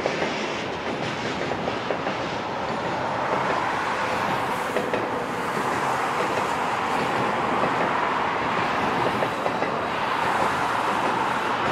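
Double-stack container cars of a freight train rolling across a steel deck truss bridge. A steady rolling rush carries many small clicks from the wheels.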